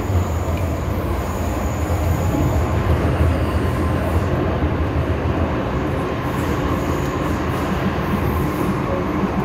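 MTR M-Train metro electric multiple unit running between stations, heard from inside the car: a steady rumble of wheels and running gear with a faint high whine.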